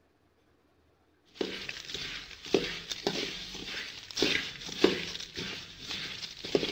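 Spoon stirring coriander seeds, cumin and black peppercorns roasting in a little oil in a metal kadai: repeated scraping strokes against the pan with the seeds rattling, starting suddenly about a second in.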